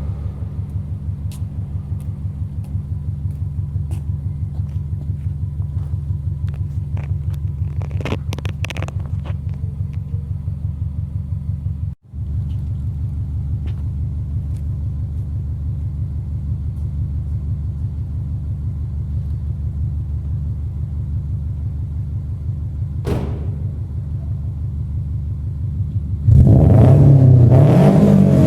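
Subaru Impreza GC8's naturally aspirated EJ20 flat-four, with an unequal-length exhaust manifold and a 3-inch catless exhaust, idling with a steady, pulsing rumble. About two seconds before the end it is revved sharply, the sound jumping louder and rising and falling in pitch.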